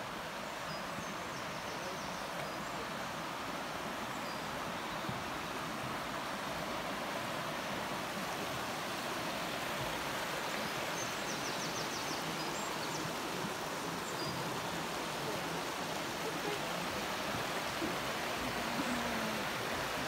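The River Ffyddion rushing over rocks in a steady, even wash of water noise, growing a little louder as the stream comes closer. A few faint high chirps come about halfway through.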